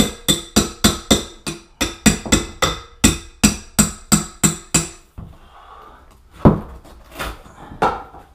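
Claw hammer striking a metal blade driven under glued cork underlayment on a plywood subfloor: quick, even, ringing strikes, about four a second, that stop about five seconds in. Three separate knocks follow, the loudest about a second and a half after the hammering stops.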